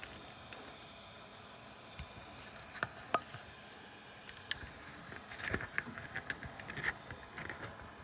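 Scattered light clicks and taps over a faint steady background, more frequent in the second half: hands handling filament and the printer's plastic parts.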